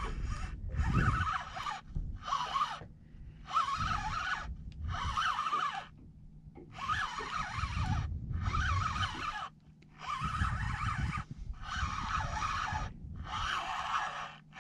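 Spinning reel being wound in about a dozen short spells of a second or so each, with brief pauses between, as a hooked fish is pumped up and reeled in.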